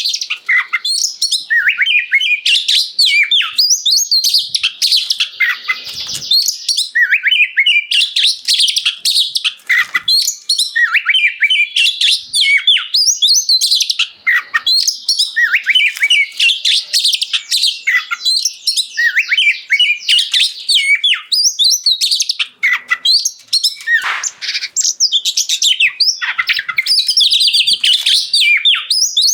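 Oriental magpie-robin singing non-stop in a loud, clear voice: a fast, unbroken run of varied whistles, chirps and trills.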